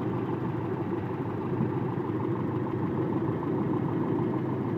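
Toyota 22R-E fuel-injected four-cylinder engine idling steadily. The diagnostic TE1–E1 jumper has been unhooked, so it runs at its normal idle with the timing back near 12 degrees.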